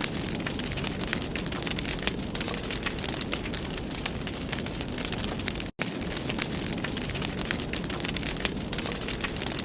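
Wood fire burning in a fireplace: a steady hiss and rumble with many sharp crackles and pops. The sound cuts out for an instant a little under six seconds in.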